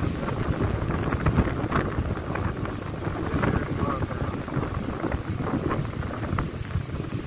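Very heavy rain pouring down, with gusting wind buffeting the microphone in a steady low rumble and rain spattering close by.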